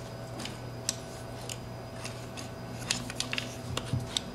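Small scattered clicks and scrapes of fingers working the jumper clip on the speaker terminals of a 10-inch Alpine Type R subwoofer, over a steady low hum.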